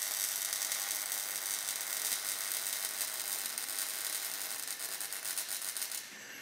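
MIG welding arc crackling and hissing steadily as a bead is run on a steel frame, cutting off near the end.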